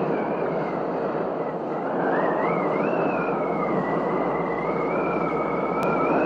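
Intro sound effect: a steady rushing noise with two thin whistling tones that waver slowly up and down in pitch, cut off suddenly at the end.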